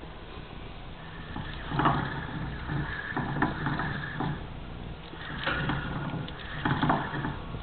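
Pet mice scrabbling and rustling through wood-shavings bedding in a glass cage, in irregular bursts of scratchy noise.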